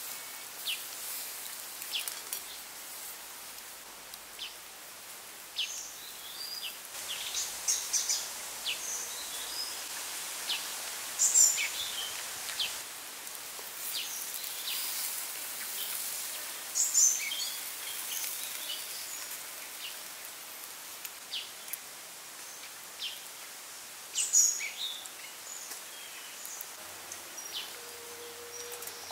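Outdoor ambience: a steady hiss with birds chirping now and then in short, high calls, a few of them louder.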